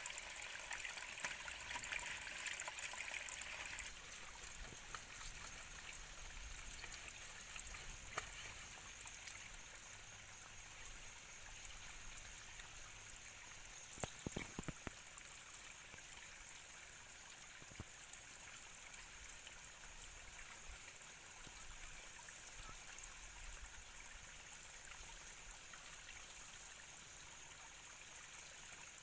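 Steady trickle of running water from a bamboo spout pouring into a shallow rocky stream, a little louder in the first few seconds. A few short knocks about halfway through.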